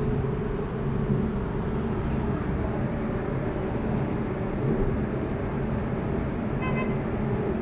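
Steady rumble of road traffic, with a short, flat-pitched tone like a distant horn near the end.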